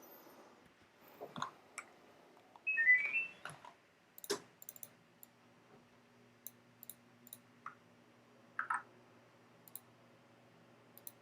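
Computer mouse clicking, scattered single clicks, with a brief high chirp about three seconds in, the loudest sound here.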